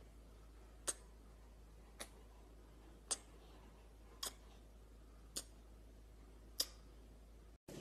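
Nail clippers snipping a golden retriever puppy's claws: six faint, sharp clicks, about one a second.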